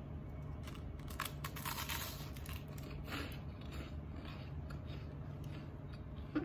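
Crunching as a slice of crispy sugar-buttered toast is bitten and chewed: a dense burst of crunches about a second in, then scattered smaller crunches while chewing, over a steady low hum.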